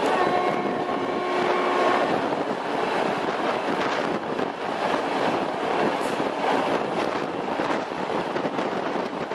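Passenger train running at speed, heard from an open carriage window: a steady rush of wind and wheels rolling on the rails. A faint held tone sounds over the first two seconds.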